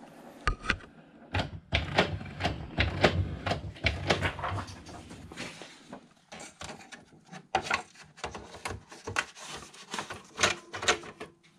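Paper rustling and the plastic rear paper tray and guide of a Canon Pixma E3370 printer clicking and knocking as a sheet is loaded by hand: irregular clicks and handling noise throughout.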